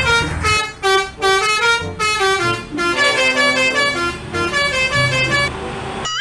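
Telolet bus horn playing a quick melody: a run of short, stepping horn notes, several tones sounding together in places, cutting off just before the end.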